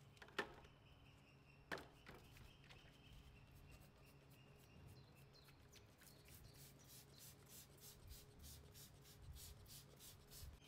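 Faint rapid squirts from a hand trigger spray bottle of wheel cleaner, about three or four pulls a second, starting about halfway through. Before them come a couple of light knocks of plastic bottles being handled.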